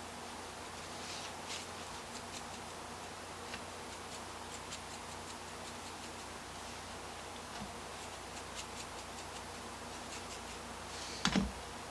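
Scattered faint ticks and light taps of hands handling things while a fish is seasoned, with one louder knock near the end.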